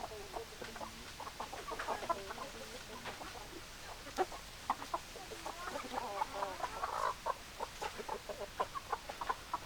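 Chickens clucking: a dense run of short clucks mixed with some longer, wavering calls.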